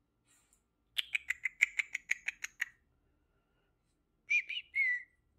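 A bird calling: a rapid run of about a dozen short, high squeaky notes, then a few short chirps falling in pitch near the end.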